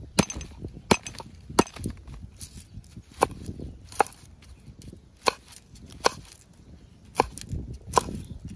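Cleaver chopping garlic cloves on a wooden cutting board: about ten sharp, separate knocks of the blade on the wood, roughly one a second, with soft handling noise between them.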